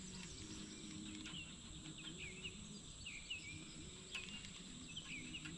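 Faint outdoor ambience: small birds chirping in short, scattered calls over a steady, high insect drone.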